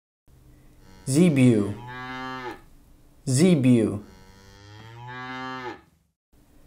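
Zebu lowing: two long moos about two seconds apart.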